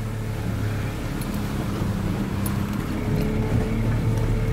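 Small boat's motor running steadily with a constant low hum, with wind noise on the microphone.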